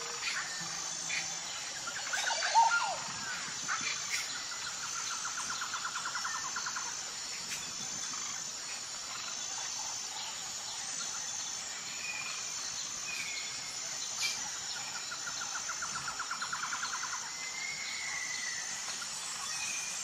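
Outdoor nature ambience: a steady, high, rhythmic insect chirping under scattered short bird calls, the loudest about two and a half seconds in. A rattling trill sounds twice, once early and once near the end.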